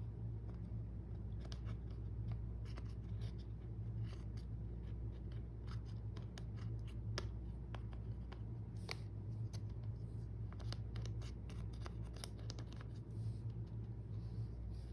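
Slime being kneaded and stretched by hand, giving many small irregular clicks and pops over a steady low hum.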